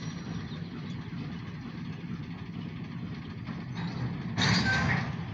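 Steady low rumble of the OC&T light power locomotives running at a distance, with a brief louder rush of noise about four and a half seconds in.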